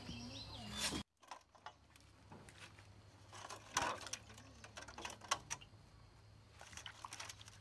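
Faint scattered clicks and light knocks of fresh bamboo shoots being peeled by knife and by hand, the husk sheaths cracking off. A low steady hum cuts off abruptly about a second in.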